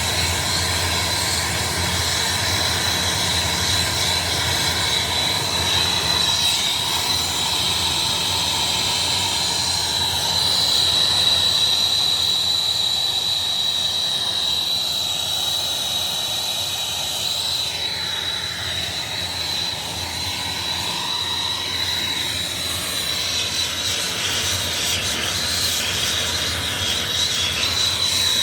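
Air-acetylene brazing torch burning at a high flame while brazing a copper pipe coupling: a steady, high-pitched screaming tone over a dense hiss.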